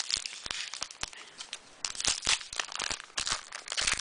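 Foil trading-card pack wrapper crinkling and rustling in the hands, a run of quick crackles that thickens about halfway through and again near the end.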